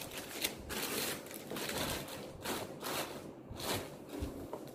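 Plastic wrapping crinkling and rustling in irregular bursts as an amplifier is pulled out of it by hand.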